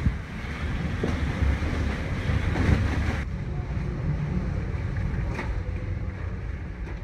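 Typhoon wind and driving rain: a steady rushing noise with heavy low rumbling buffeting. The higher hiss thins out suddenly about three seconds in.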